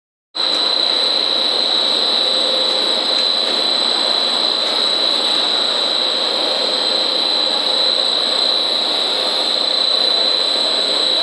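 CYS-100 food extruder line running during dog-chew production: a loud, steady machinery noise with a high, steady whine on top and a fainter lower hum.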